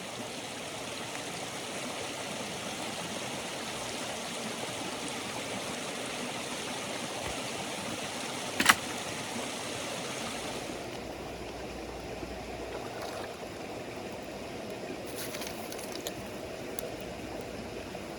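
River water flowing steadily with a constant rushing hiss. A single sharp knock comes a little under halfway through. About three-fifths of the way in the sound turns duller, with a few small clicks after.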